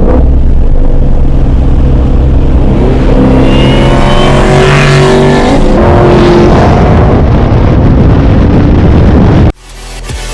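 Ford Mustang GT's V8 engine at full throttle under hard acceleration. Its pitch climbs, drops at a gear change about five and a half seconds in, then climbs again. It cuts off abruptly near the end.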